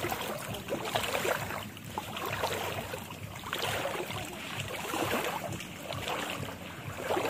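Feet wading through shallow water, sloshing and splashing at each step in an uneven rhythm.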